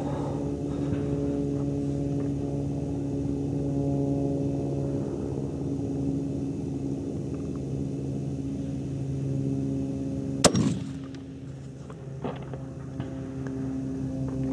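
A single sharp rifle shot from a Swiss K-31 about ten seconds in, over a steady low hum, followed by a couple of faint clicks.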